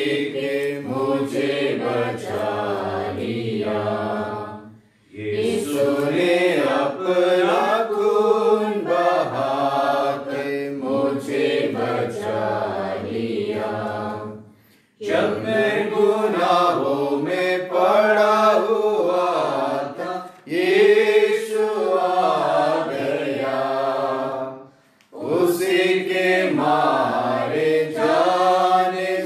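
A man singing a Hindi hymn, with long sung phrases broken by four short pauses for breath.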